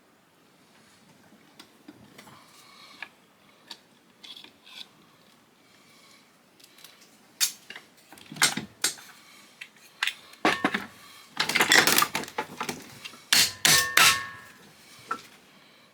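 Hand tools working on the metal parts of an old Cuisinart food processor being taken apart: light clicks and scraping at first, then sharp metal knocks and clatter in the second half, with some parts ringing briefly.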